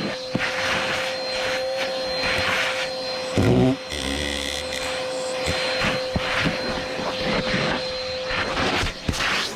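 Vacuum cleaner running with a steady motor whine while its nozzle works over car carpet and upholstery, with frequent short scratchy rasps as it drags and sucks up debris. A brief louder knock comes about three and a half seconds in.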